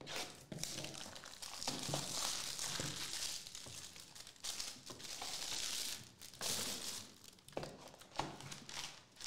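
Plastic wrapping on a small cardboard trading-card box crinkling and tearing as it is slit and stripped off, mixed with light taps and scrapes of cardboard as the box flap is opened. The crinkling runs for most of the first six seconds, then comes again briefly.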